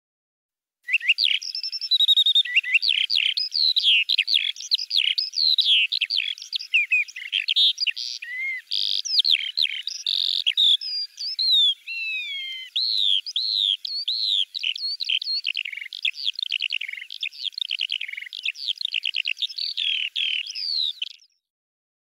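A bird singing a long, fast, varied song of chirps, trills and sweeping whistles. It starts about a second in and stops abruptly shortly before the end.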